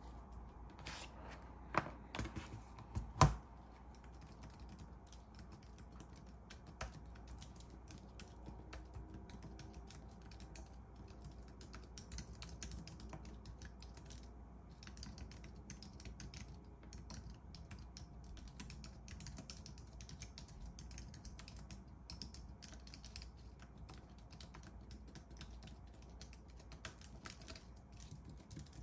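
Typing on an Apple Magic Keyboard: a quick, continuous patter of soft clicks from its low-profile scissor-switch keys. A few sharper, louder knocks about two to three seconds in as the keyboard is handled, before the typing starts.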